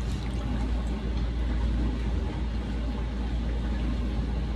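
Dishwasher running: a steady low rumble with an even wash of noise over it.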